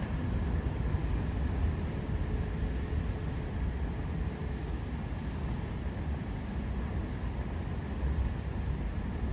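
Steady low rumble of wind buffeting the phone's microphone, with no clear separate bangs.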